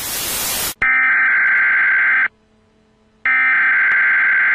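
TV static hiss cuts off under a second in, then an emergency-broadcast alert tone sounds in two harsh electronic bursts of about a second and a half each, a second apart.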